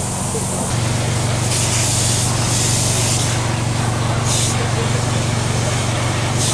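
Water jet from a fire hose spraying onto burnt caravan wreckage, hissing and swelling in several surges. A steady low engine hum runs underneath.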